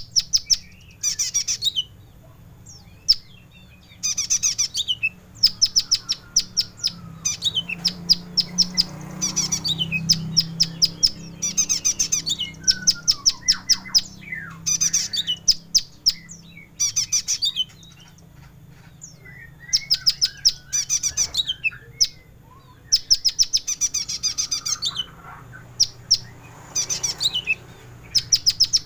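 Olive-backed sunbird (kolibri ninja) singing a rich, varied song of sharp, high notes, delivered as fast trilled phrases of a second or two with short pauses between them.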